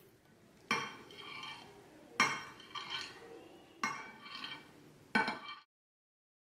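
Spatula edge knocking against a glass baking dish while cutting set jelly into cubes: four sharp clinks about a second and a half apart, each ringing briefly. The sound cuts off suddenly near the end.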